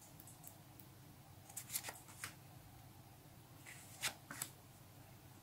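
A stack of paper Panini stickers being flipped through by hand, the top sticker slid off the pile: faint papery slides and flicks in two short clusters, about a second and a half in and about four seconds in.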